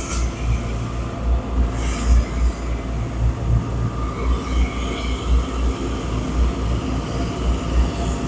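Heavy asphalt-paving machinery running: a deep, pulsing rumble with a faint steady whine above it.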